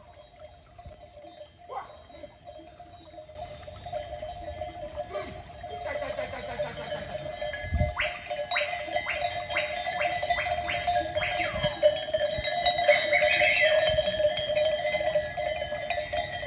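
Bells on a flock of sheep clanking and ringing as the animals walk in. They grow louder over the first half, with a quick run of clanks from about halfway in.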